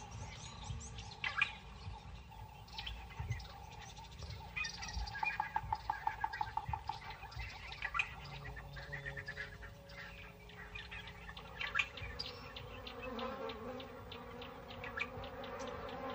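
Faint bush ambience of insects buzzing, with scattered short bird chirps and a rapid chirping trill a few seconds in.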